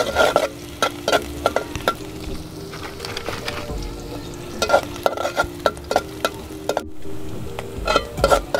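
Chopped onion and green chilli frying in hot oil in a pot, sizzling steadily, while a spoon stirs them with repeated irregular clicks and scrapes against the pot.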